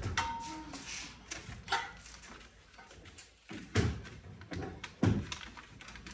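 Knocks and clanks from a metal pickup tailgate ladder frame being lifted, turned and set down, a few separate hits with the loudest two about four and five seconds in.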